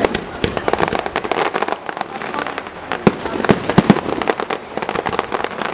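Fireworks display: firework shells bursting in a dense, continuous run of bangs and crackling, with the loudest reports about three seconds in and twice more within the next second.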